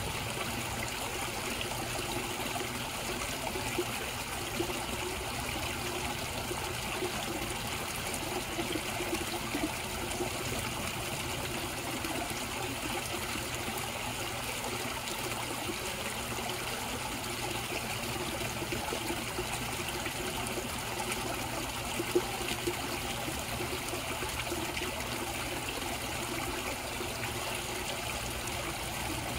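Koi pond water trickling and splashing steadily, with one brief sharper sound about three quarters of the way through.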